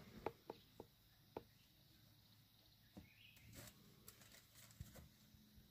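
Near silence: a faint low hum with a few scattered faint clicks or taps.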